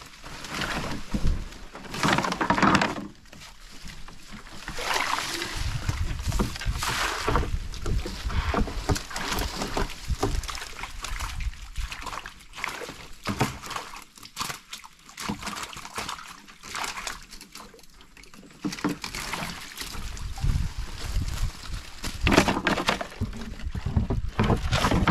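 River water splashing and sloshing as a large fish is scooped out of a net fish trap with a hand landing net, in irregular surges with sharp knocks mixed in.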